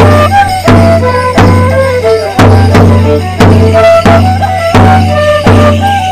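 Fiddle playing a lively folk dance tune close by, over a steady low note, with sharp knocks on the beat about every two-thirds of a second.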